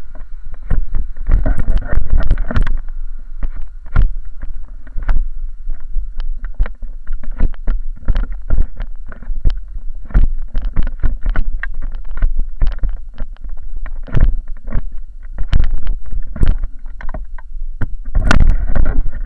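Inline skate wheels rolling over rough asphalt: a constant low rumble with frequent irregular knocks and rattles from the jolts. Wind on the microphone.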